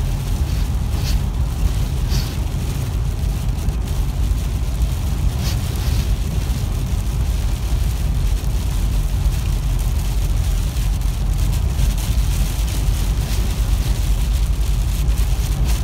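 Steady low rumble of a car's road and engine noise heard inside the cabin while driving a highway in rain, with rain on the windshield adding a hiss and a few short swishes in the first six seconds.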